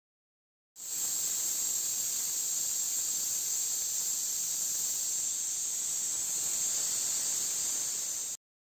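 Stovetop pressure cooker venting steam at its weighted whistle valve: a steady, high-pitched hiss that starts abruptly about a second in and cuts off sharply near the end. This is the sign that the cooker is up to pressure.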